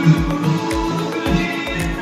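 Background music with a steady beat: a low drum hit about every two thirds of a second under sustained melodic tones.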